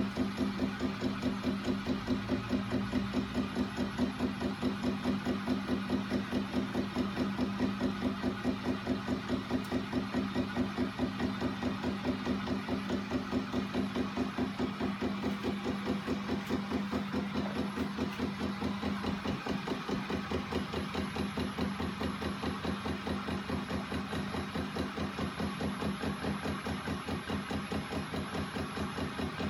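Homemade flywheel-and-crank linkage machine driven by a small electric motor, running steadily: a constant motor hum under a fast, even, rhythmic knocking from the swinging linkage arms and crank on each cycle.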